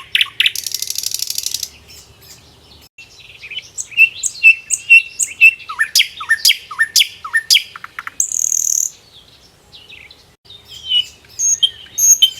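Songbirds chirping and singing: a fast buzzy trill near the start, then a run of quick chirps and whistled, downward-sweeping notes, with a short high buzz about eight seconds in and sparser calls near the end.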